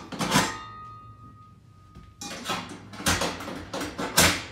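A metal bike mount clanking against a slotted stainless-steel wall track as it is lifted off and moved. A knock about a quarter second in leaves a ringing tone for about two seconds, then comes a run of knocks and rattles near the end.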